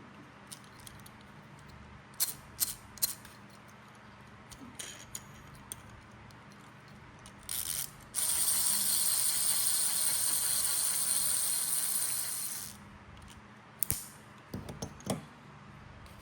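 Hard plastic toy parts clicking and rattling as they are handled, in a few separate sharp clicks. In the middle comes a steady high hiss lasting about four seconds, the loudest sound here.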